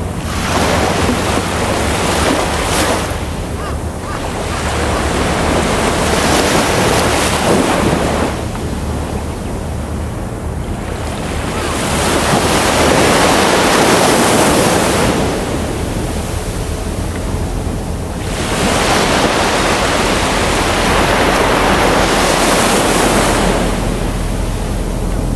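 Ocean waves breaking and washing up the shore, surging about four times with quieter lulls in between.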